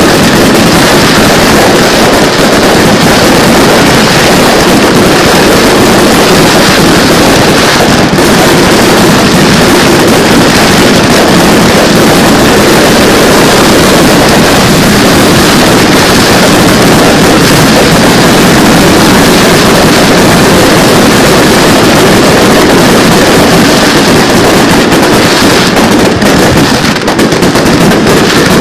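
Display fireworks finale barrage: many shells launching and bursting at once, their reports and crackle running together into one continuous loud din with no gaps. The recording is so loud that it stays pinned at its maximum level throughout.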